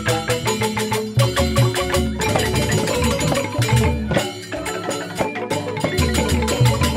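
Joged bumbung gamelan playing: bamboo xylophones (grantang) struck in a fast, dense run of notes over a repeating low drum pulse.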